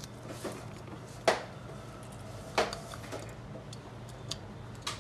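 Small clicks and taps from handling a phone motherboard and its parts on a repair bench, with two sharper clicks about a second and a quarter apart near the middle, over a steady low hum.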